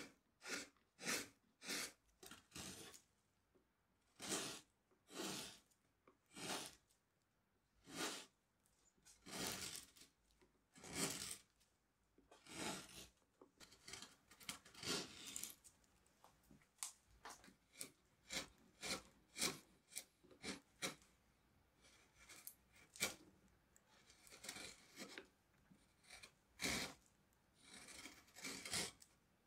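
Carving gouge slicing shavings from tulip tree wood by hand: a run of short cutting strokes, about one a second, some brief and some longer and drawn out.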